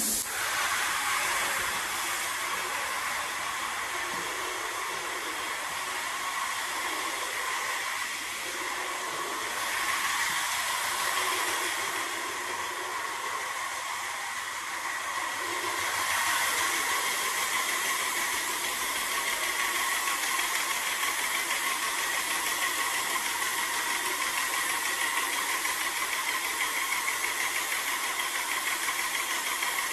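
Airless paint sprayer in use: a steady high hiss of paint atomising at the spray tip, starting abruptly as the gun is triggered, with the sprayer's pump running underneath.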